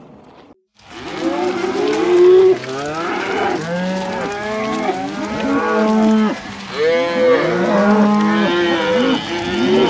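A herd of Holstein dairy cows mooing, many long calls overlapping one another. The calls start about a second in, after a brief silence.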